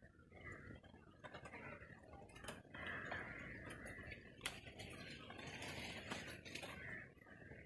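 Vegetables being picked by hand from climbing vines: leaves rustling, with a scattering of sharp clicks as stems and pods snap off.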